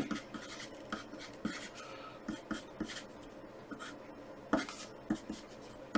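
Wooden pencil writing on graph paper: quiet scratching strokes and short taps of the lead, irregular as letters and lines are drawn.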